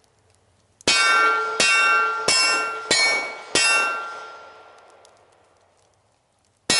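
Five handgun shots in quick succession, about two-thirds of a second apart, each hit a sharp metallic clang of a steel target that rings on and fades out over a couple of seconds after the last. Right at the end another string of hits begins.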